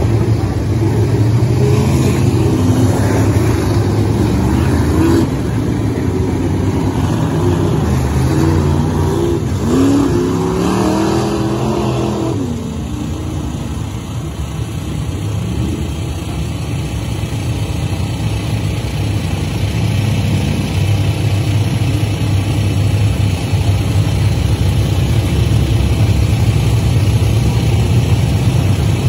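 Dirt-track race car engines running around the oval, their pitch swelling and falling as cars pass. After about twelve seconds this settles into a steadier engine drone from the slower-moving field.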